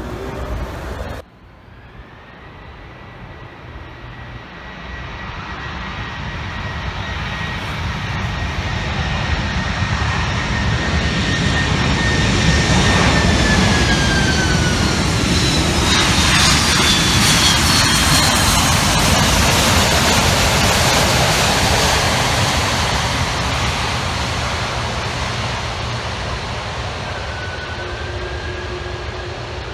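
Airbus A330's twin jet engines at high thrust as the airliner rolls past along the runway. The sound grows steadily louder, peaks as it goes by with its whine sliding down in pitch, then slowly fades as it moves away.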